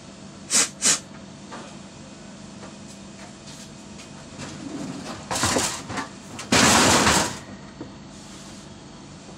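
Metal parts of an open display freezer being handled during fan fitting: two quick sharp clinks near the start, scraping a little past the middle, then a loud clattering scrape lasting under a second. A steady low hum runs underneath.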